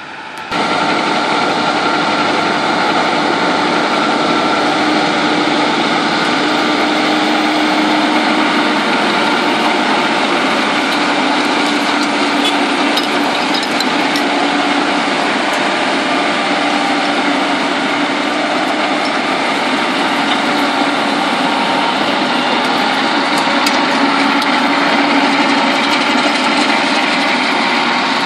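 John Deere 6210R tractor's six-cylinder diesel working steadily under load while pulling a rotary power harrow through dry soil, the harrow's rotors and gearbox adding a steady mechanical hum and churn. It comes in abruptly about half a second in.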